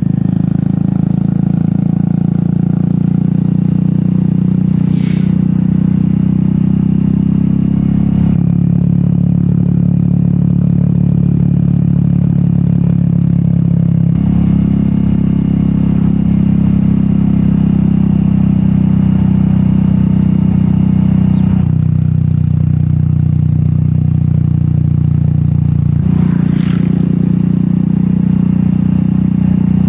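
Royal Enfield Meteor 350's single-cylinder engine running through an aftermarket sport exhaust while riding, a steady low exhaust note whose pitch changes in steps four times.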